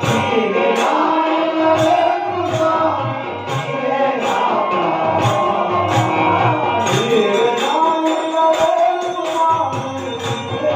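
Male voices singing a devotional bhajan to a harmonium's held chords and a dholak (two-headed barrel drum), with a steady high percussive tick keeping the beat.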